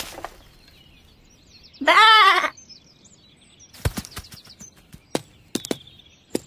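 A cartoon lamb's bleat, a single short wavering 'baa' about two seconds in, followed by a few sharp light taps.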